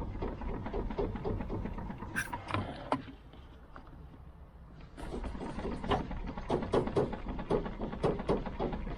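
Diesel engine of a VW Golf Mk2 1.6D running, with many irregular sharp knocks and clatter over a steady low hum. It is louder at first, drops off about three seconds in, and picks up again about two seconds later.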